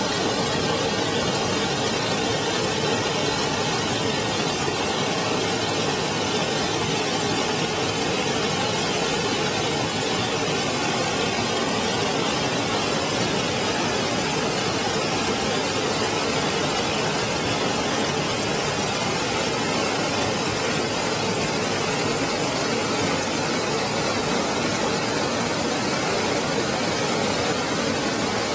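Small river waterfall pouring over rock into a pool, heard close up: a steady, even rush of falling water.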